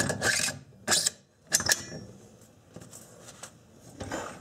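AR-15 bolt carrier and charging handle sliding and clicking into the upper receiver: a short metal-on-metal slide with sharp clicks near the start, about a second in and about a second and a half in, then lighter ticks of parts being handled.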